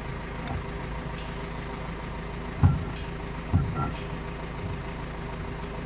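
Caterpillar 434E backhoe loader's diesel engine idling steadily, with two brief low knocks about a second apart near the middle.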